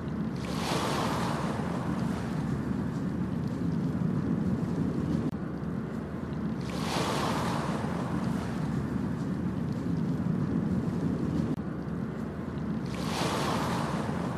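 Ocean waves breaking and washing up the beach three times, about six seconds apart, over a steady low surf rumble.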